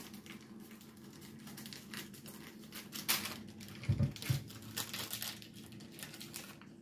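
Waxed paper crinkling and crackling in irregular sharp bursts as it is handled around a freshly baked sponge sheet, with a brief low sound about four seconds in.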